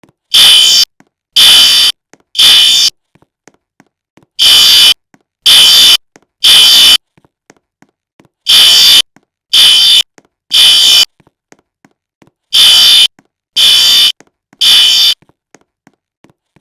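Fire alarm sounding loud, high-pitched beeps in repeated groups of three, each beep about half a second long, with a short pause after every third beep. This is the temporal-three pattern that signals evacuation.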